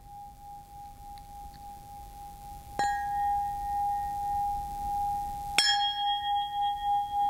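A small brass bell hung on a cord, struck twice with a wooden stick about three seconds apart. One clear ringing tone sustains throughout, its level wavering as it rings on after each strike.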